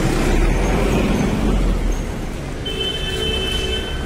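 Close road traffic rumbling, loudest in the first second or two, with a vehicle horn held for about a second near the end.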